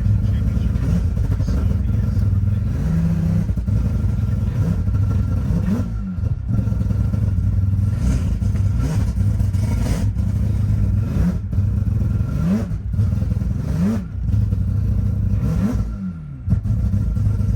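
High-powered car engine held at high revs and revved up and down again and again, a rise and fall every two seconds or so, as a car drifts.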